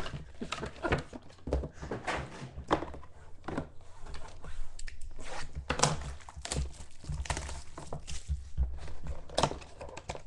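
Clear plastic wrapping on a trading-card pack crinkling and tearing as it is handled and opened, in a run of irregular crackles, with soft knocks from the cardboard card box being handled on the table.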